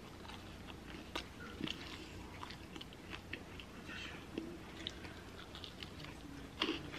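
A person chewing and biting pizza crust close to the microphone, with irregular small mouth clicks and a few crisper bites.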